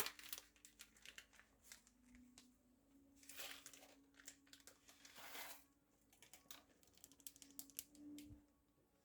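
Light crinkling and rustling of packaging being handled, with scattered small clicks and taps and two longer rustles. A faint steady hum runs underneath.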